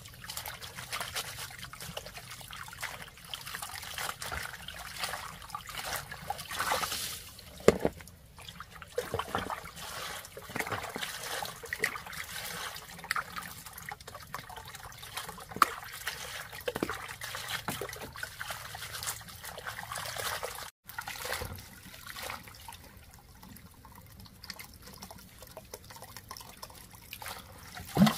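Water trickling and splashing, with many scattered clicks and knocks; one sharp knock stands out about eight seconds in.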